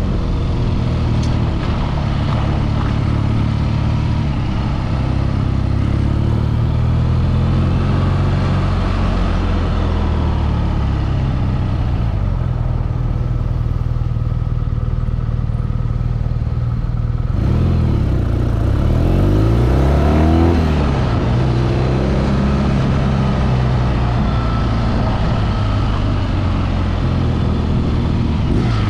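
A BMW motorcycle engine running while riding in city traffic, its note mostly steady. About two-thirds of the way through, the engine note drops and climbs again as the revs change.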